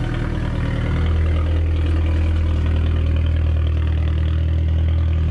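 Car engine running steadily at low revs as the car pulls slowly away, a little louder from about a second in.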